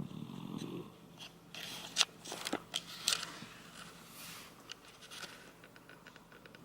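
A sleeping Shiba Inu gives one short, low snore at the start, followed by a scatter of sharp clicks, the loudest about two seconds in.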